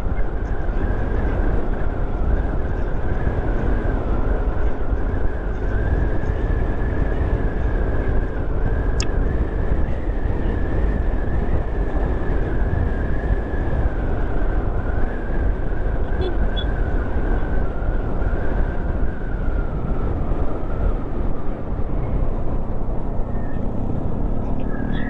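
Motorcycle riding at steady speed: a constant rush of engine, wind and road noise.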